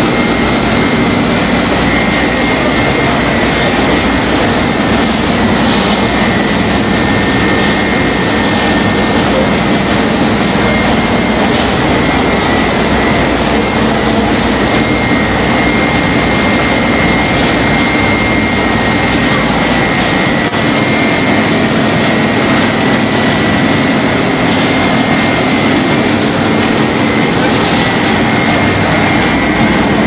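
Electric motor-driven blower fans of a rice husk-fired steam boiler running, a loud steady rush of air and machinery with a low hum and a thin high whine.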